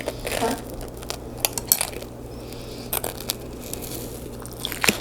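Close-up eating sounds: chewing lasagna with wet mouth smacks and scattered sharp clicks, over a low steady hum.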